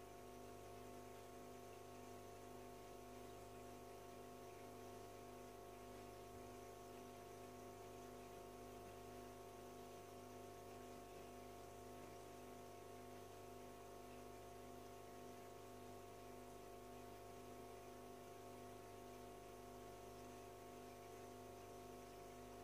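Near silence: a faint, steady hum of several fixed tones with a light hiss, from the aquarium's filter pump running.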